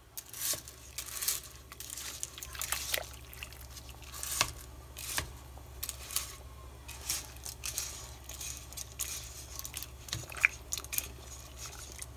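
Dry spaghetti being pushed down into a pot of boiling water: irregular crackling and clicking as the stiff strands rub and bend against each other and the pot.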